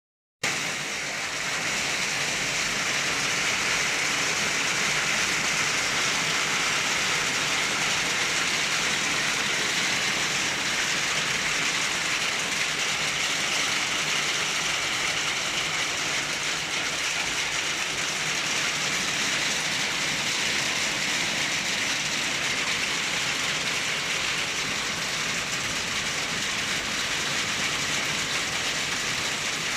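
Hail falling with heavy rain, steady and unbroken.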